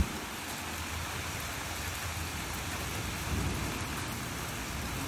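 Steady rain falling with low rolling thunder underneath, swelling slightly about three seconds in.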